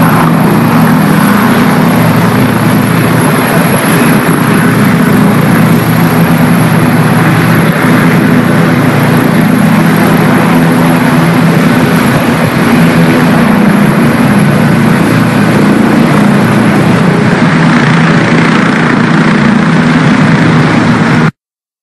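AgustaWestland AW169 twin-turbine helicopter hovering low, its rotor and turbines running loud and steady. The sound cuts off abruptly near the end.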